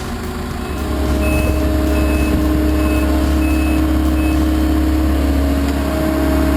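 Heavy excavator's diesel engine running, getting louder about a second in as it takes on load, with a travel/backup alarm beeping about five times at an even pace before stopping.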